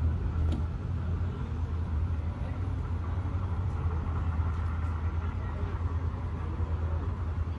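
A steady low rumble under a constant noisy background.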